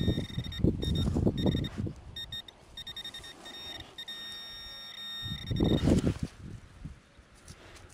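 Metal detector giving a steady high beep tone in broken stretches, signalling a metal target in the dig hole, over the scrape and thud of a small hand shovel cutting into soil. The tone stops about six seconds in, after a last burst of digging.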